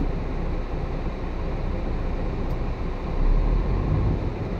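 Heavy truck's diesel engine running, heard from inside the cab, with its low rumble growing louder about three seconds in.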